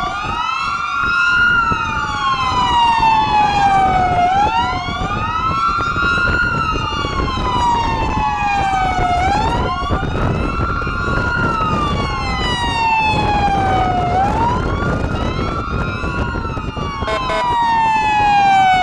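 Police car sirens wailing in slow rising-and-falling sweeps about every five seconds, at least two sirens overlapping slightly out of step, over the road and engine noise of moving vehicles.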